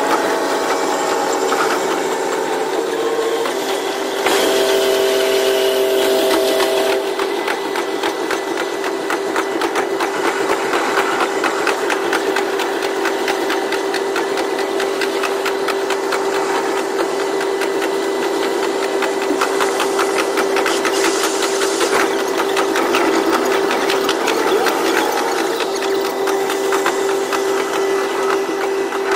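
KiHa 122 series diesel railcar running, its sound played at double speed: a steady engine and transmission hum with a constant fast rattle of clicks from the running gear. A few tones glide in pitch near the start.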